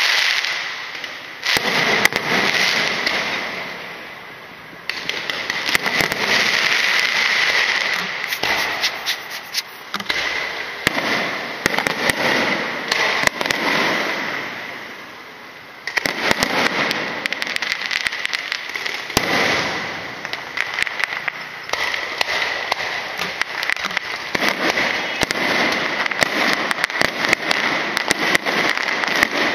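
Fireworks going off in the street: dense crackling over a continuous high hiss. The crackle swells and fades, then starts again suddenly about 5 seconds in and again about 16 seconds in.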